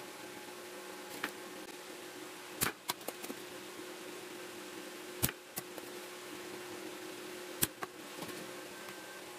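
A few sharp clicks and taps as a circuit board and tools are handled on a wooden workbench, four of them clearly heard, over a steady faint hum.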